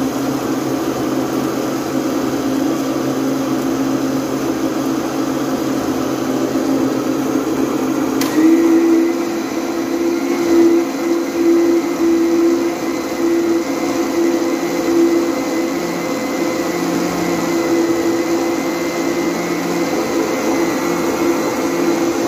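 Electric blender running steadily, blending milk, strawberries and sugar into a strawberry shake. About eight seconds in there is a click, after which the motor's tone goes up a little and runs steadily on.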